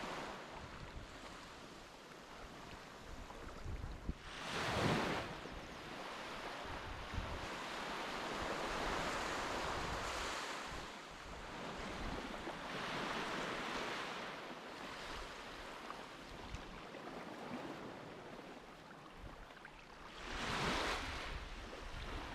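Sea waves washing in, with wind buffeting the microphone; two louder surges of water, about five seconds in and near the end.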